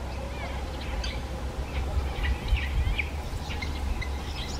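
Several birds calling in short chirps and quick whistled glides, one after another, over a steady low rumble.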